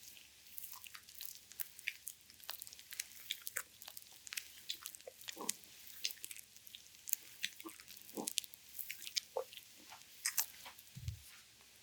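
Oiled hands massaging a bare belly, making many small wet clicking and squishing sounds, with a few short stomach gurgles.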